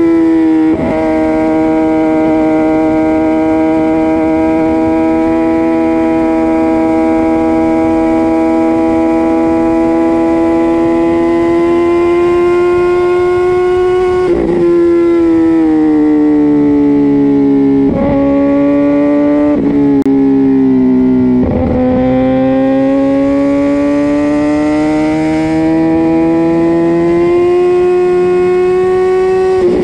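Kawasaki Ninja ZX-10R's inline-four engine through a Spark full race exhaust, heard onboard while riding: a loud, steady high-revving note. It is broken a few times by brief gear changes, after which the pitch sags, then climbs steadily in the last third as the bike accelerates.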